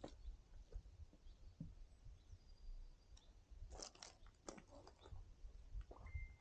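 Faint, scattered crunches and clicks of footsteps on loose shale stones, heaviest about four seconds in, over a low wind rumble on the microphone.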